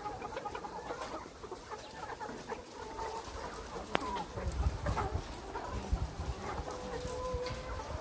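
A crowd of caged brown laying hens clucking and calling, many short calls overlapping, with one longer drawn-out call near the end. A low rumble comes and goes about halfway through.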